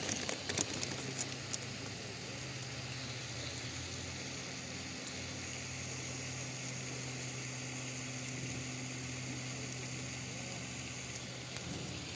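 Plastic bag crinkling briefly at the start, then steady outdoor background with an even low hum.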